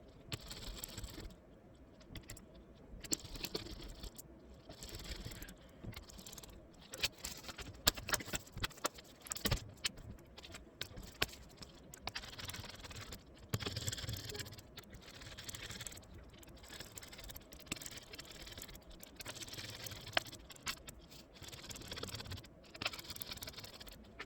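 Small hard parts and tools being handled: irregular clicks, taps and light rattles, as when screws, covers and a circuit board are worked on by hand.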